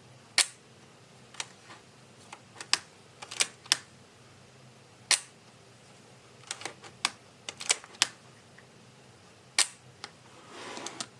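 Leica M3 film rangefinder's shutter being released again and again: a series of sharp single clicks a second or more apart, with smaller clicks between them from working the camera's double-stroke film advance. A short rustle near the end.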